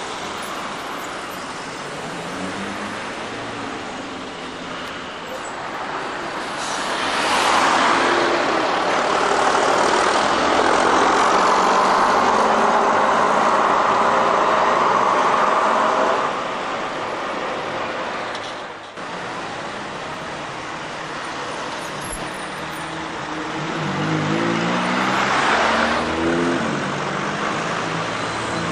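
Street traffic with buses and cars going by. A heavy vehicle passes close and is loudest for about eight seconds in the middle, and near the end an engine accelerates, its note rising.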